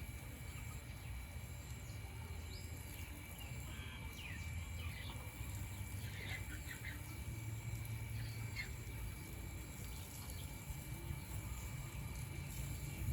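Faint, scattered short bird chirps over a steady low rumble.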